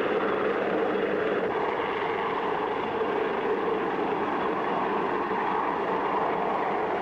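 Aircraft engine running with a steady drone.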